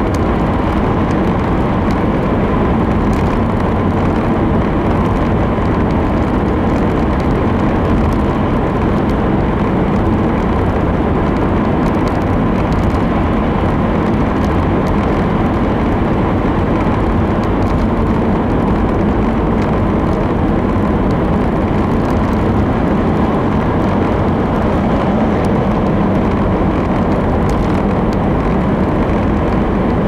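Steady tyre and engine noise of a Subaru XV, heard from inside the cabin while cruising through a road tunnel.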